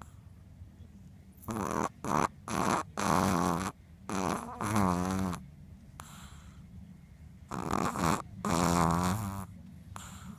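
A dog snoring loudly in deep sleep: a run of several snores in quick succession, a pause of about two seconds, then another run.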